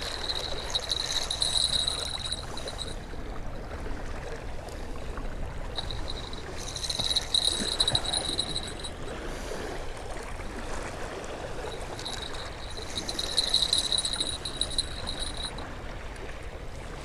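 Small waves lapping and trickling against the lakeshore. A high-pitched sound comes and goes three times over it, each time for about three seconds.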